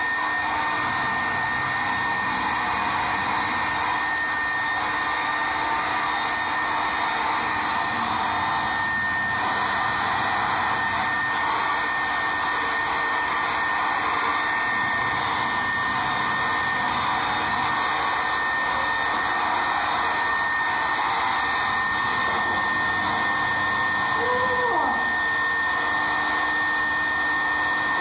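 Handheld hair dryer running steadily, a continuous rush of blown air with a thin, steady high whine over it.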